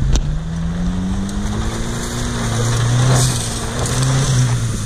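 Ford Maverick SUV's engine revving up and down under load as it claws up a steep dirt bank with its wheels spinning. A sharp knock comes just after the start.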